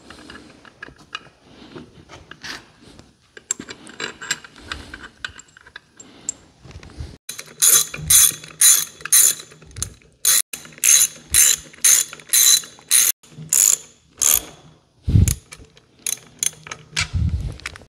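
Socket ratchet wrench clicking as bolts on a hydraulic PTO housing are run down. There are light scattered clicks at first, then from about seven seconds in a steady run of quick ratchet strokes, about two a second, with a couple of dull knocks near the end.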